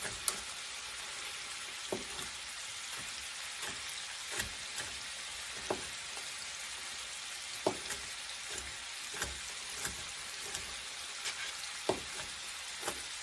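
Ground beef sizzling in a hot skillet, a steady hiss, with irregular sharp taps of a knife on a cutting board as an onion is roughly chopped.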